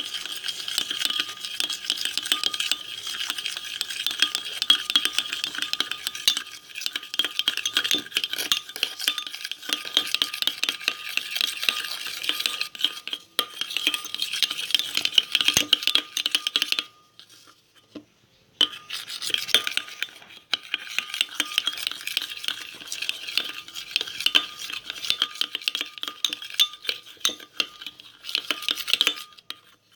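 Spoon stirring slime mixture with food colouring in a bowl: a dense run of quick scraping and clicking against the bowl. It stops for about a second and a half a little past halfway, then goes on.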